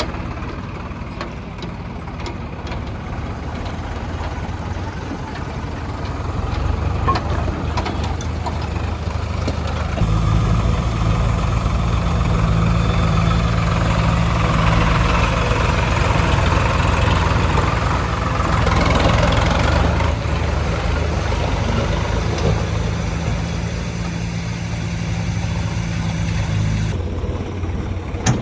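Heavy diesel engine running. About ten seconds in it grows louder and heavier and holds under load, typical of machines working to pull a loaded tractor out of mud, then drops back near the end.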